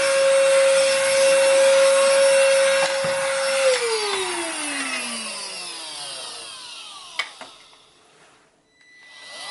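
AUTOMO ATM-H200 cordless handheld vacuum cleaner running with a steady whine and rush of air. It is switched off a little under four seconds in, and the motor winds down with its pitch falling over about three seconds. A sharp click comes late in the wind-down, and just before the end the motor starts up again, its whine rising.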